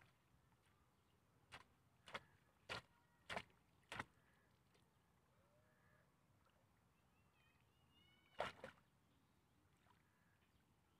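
Five sharp splashes in shallow water, evenly spaced a little over half a second apart, then a louder double splash about eight and a half seconds in.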